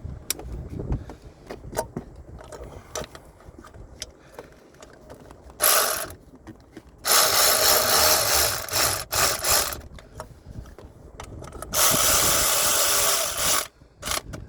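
Ratchet wrench clicking as housing bolts are run in, in three runs: a short one about six seconds in, a long one at about seven seconds, and another near the end, with light tool clinks before them.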